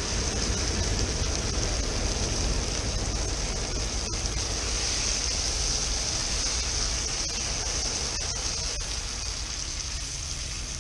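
Fish fillets sizzling as they fry in butter in a metal pot, a steady hiss, with a few light clicks of a utensil against the pot.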